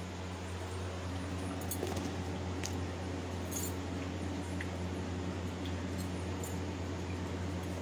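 A steady low electrical hum over background hiss, with a few faint light clinks about two to five seconds in.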